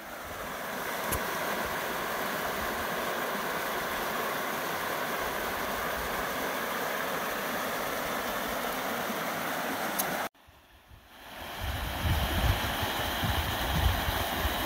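Small mountain creek running over rocks, a steady rush of water. The sound cuts out briefly about ten seconds in, then returns with an uneven low rumble underneath.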